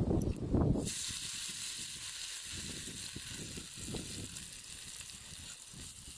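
Yellow spice paste sizzling in hot oil in a metal wok: a steady frying hiss that starts suddenly about a second in. Just before it there are a few low thuds, and soft knocks follow as the paste is spooned in.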